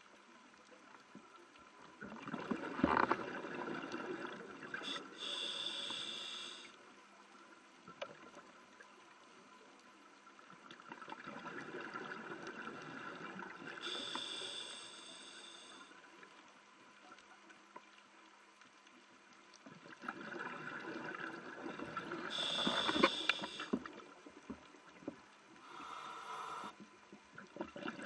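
Scuba breathing through a regulator underwater: three breaths about nine seconds apart, each a rush of bubbling air followed by a shorter, higher hiss from the regulator, with quiet spells between.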